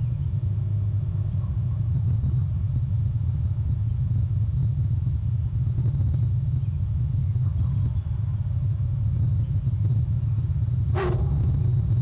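Steady low rumble, with a short sharp sound near the end.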